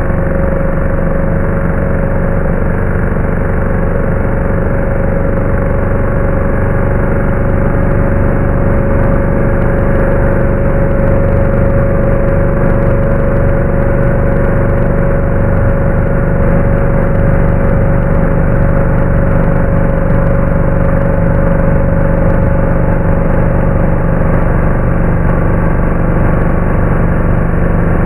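DeWalt DWE6423 random orbital sander running steadily with its newly replaced hook-and-loop sanding pad, a loud, even motor hum with a steady whine.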